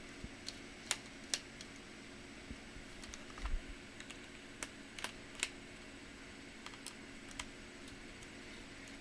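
Scattered light clicks and taps of small plastic and metal parts and screws being handled while a laptop is taken apart, irregular and unhurried, with a slightly heavier knock about three and a half seconds in.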